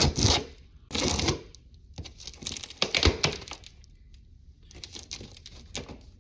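Cardboard and packing tape being scraped and torn as a large box is pried open with a paint-can opener, in several short rasping bursts with a dull knock about three seconds in.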